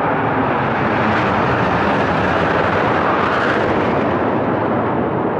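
A formation of Northrop F-5E Tiger II jets, with twin turbojets, flying past overhead with a loud, even jet roar. The roar sharpens to a hiss about three seconds in as they pass closest, then begins to fade.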